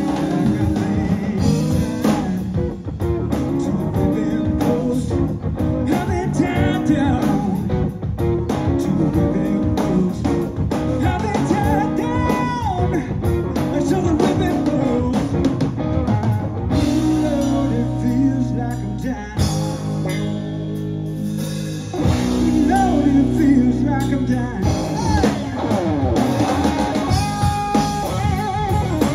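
Live rock band of electric guitar, electric bass and drum kit playing a blues-rock jam, with bending lead-guitar notes. About seventeen seconds in, the band holds a run of long sustained chords for several seconds, then the jam picks up again.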